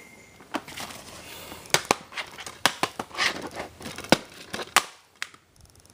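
Plastic shrink-wrap crinkling and tearing as it is pulled off a new DVD case, with sharp clicks and crackles, dying away about five seconds in.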